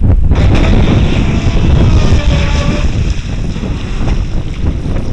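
Wind buffeting the microphone, with the faint whine of an electric RC speedboat's motor out on the water, clearest about two seconds in.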